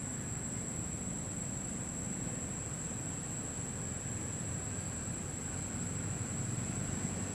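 Steady outdoor background noise: a low rumble under a constant high-pitched whine, with no distinct calls or knocks.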